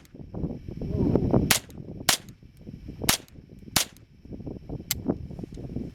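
Ruger 10/22 semi-automatic rifle firing live .22 LR rounds: four sharp cracks spaced about half a second to a second apart, then a lighter one about five seconds in.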